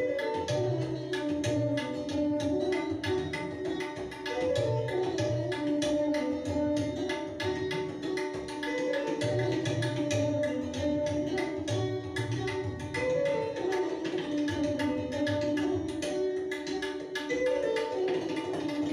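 Instrumental music in an Indian classical style: a repeating melodic line over a steady low drum beat, with the drumming like tabla.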